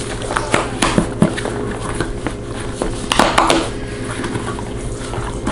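Cardboard box being opened by hand: flaps pulled up with papery rustling and sharp taps and scrapes, a run of them about half a second to a second and a half in and a louder cluster around three seconds in.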